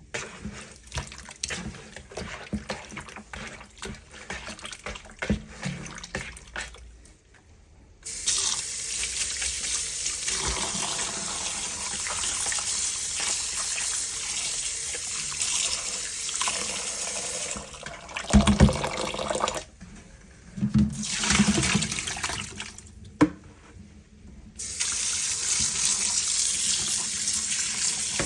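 Cubed raw chicken being washed at a kitchen sink. First come small clicks and knocks of handling; about eight seconds in, the tap runs in a steady stream. It stops for a few seconds of splashing and knocks, then runs again near the end.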